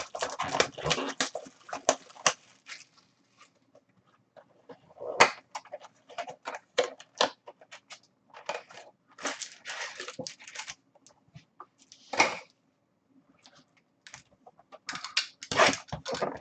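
Trading-card pack wrappers crinkling and being torn open by hand, in irregular bursts of crackling with quiet gaps between them. A sharp tap about five seconds in.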